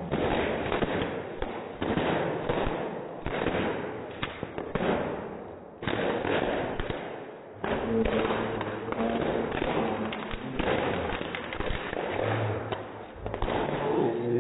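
Bubble wrap popping under dancing feet: a dense run of quick, irregular pops and crackles, thinning briefly about halfway through.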